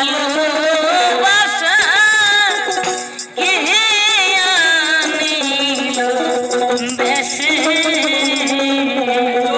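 Bengali folk song performed live: a voice singing a wavering, ornamented melody over a tambourine's jingles, with steady held notes underneath from about six seconds in.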